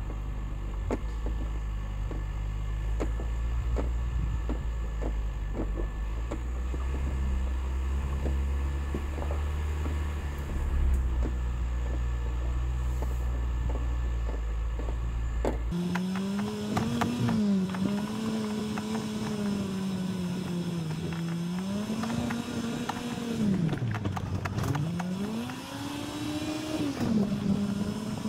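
2021 Ford Bronco's engine running low and steady in four-wheel-drive low range as it crawls over a rocky trail, with many short clicks of gravel and stones under the tyres. About halfway through the sound switches suddenly to a higher engine whine that rises and falls again and again: the footage is sped up three times, which makes the engine sound like a weed-eater.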